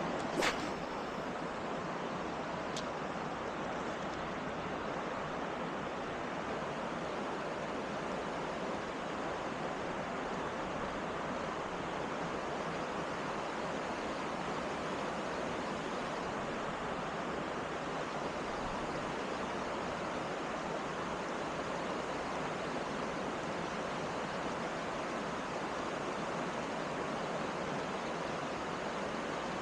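Steady rush of flowing stream water, with a single sharp click about half a second in.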